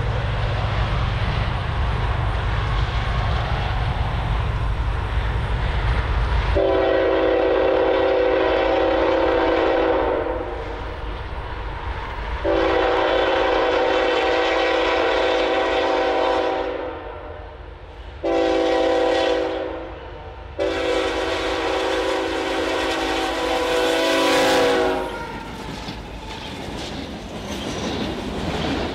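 Approaching diesel freight locomotive sounds its multi-note air horn in the grade-crossing pattern: two long blasts, a short one, and a final long one. A low rumble comes before the horn, and after the last blast the freight cars roll past with wheels clicking over the rail joints.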